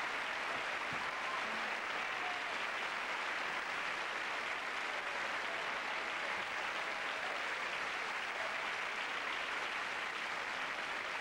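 Large theatre audience applauding steadily, the clapping holding at an even level throughout.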